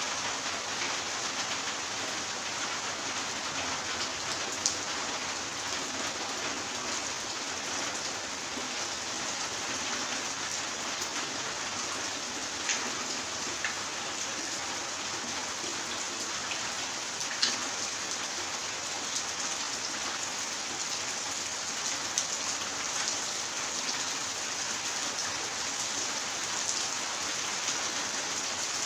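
Steady rain falling on a tiled patio and concrete yard, with a few louder single drops ticking through the even patter.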